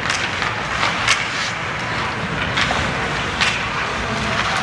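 Ice hockey play on the rink: several short, sharp skate-blade scrapes on the ice, irregularly spaced, over a steady rink din.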